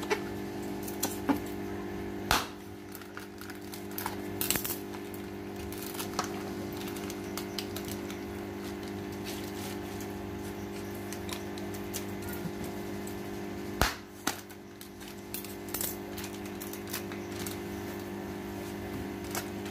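Hands and a plastic fish bag moving in a shallow plastic tub of water: small splashes and plastic handling noises with a few sharp clicks and knocks, the loudest about two seconds in and again near fourteen seconds, over a steady low hum.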